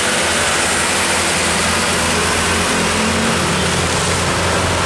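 Heavy truck's diesel engine running steadily under load as it climbs a steep hill, a low drone that rises a little in pitch about three seconds in.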